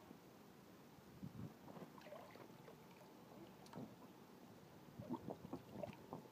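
Faint splashing and sloshing of water in an inflatable paddling pool as a small child moves about in it, in short scattered splashes with a few close together about five seconds in.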